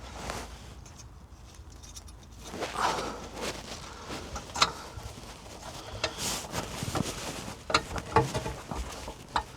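Scattered metal clicks and scrapes of a 12 mm socket being worked on a diesel heater's glow plug to unscrew it; the plug comes loose.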